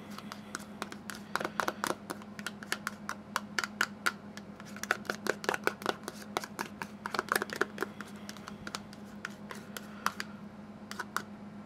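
Metal spoon scraping and clicking against a plastic yogurt tub as thick Greek yogurt is scooped out into a bowl: a quick, irregular run of small taps and scrapes, over a faint steady hum.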